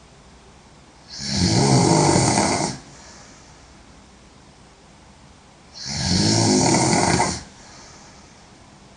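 A woman snoring loudly: two long snores, each lasting about a second and a half and some four and a half seconds apart.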